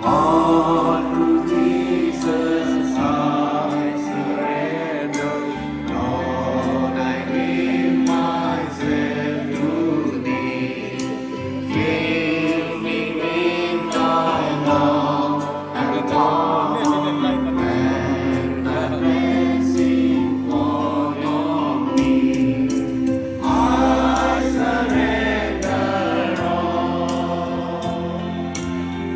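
A choir singing a hymn with instrumental accompaniment, in long sustained phrases.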